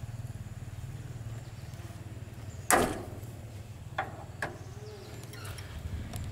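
A steel T-handle tool clacks sharply once, then clicks twice more lightly, as it is worked in the rear of a mini truck, over a steady low hum.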